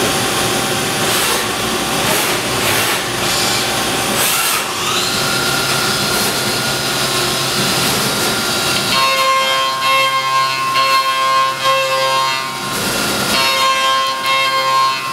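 Horizontal CNC machining center running and cutting, a loud harsh noise with a few brief surges and a rising whine about five seconds in. Layered steady tones take over from about nine seconds in.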